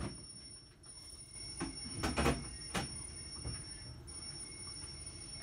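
Kitchen things being handled off to one side: a few scattered knocks and clinks, the loudest about two seconds in, over a faint steady high-pitched whine.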